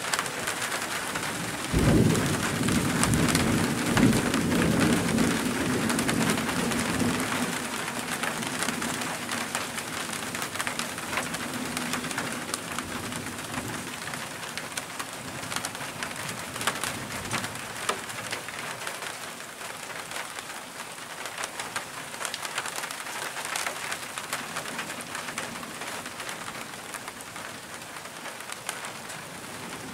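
A clap of thunder breaks suddenly about two seconds in and rolls on as a low rumble for several seconds before fading away. Steady rain falls throughout.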